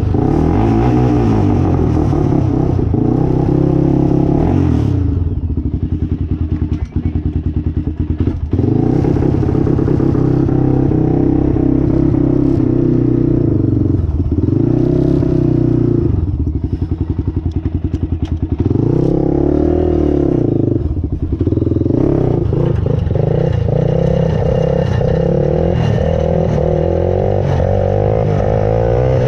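Honda 400EX ATV's single-cylinder four-stroke engine running as the quad is ridden, its revs climbing and dropping back several times.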